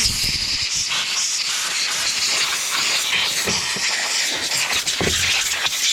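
A pressurised spray hissing steadily while a chainsaw's engine area is cleaned out, with a few faint knocks. The hiss cuts off sharply near the end.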